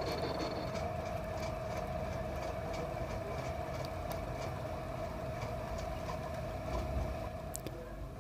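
Belt-driven lathe running steadily, spinning a V-belt pulley held in its chuck: a steady hum with a mid-pitched whine. The whine fades briefly near the end.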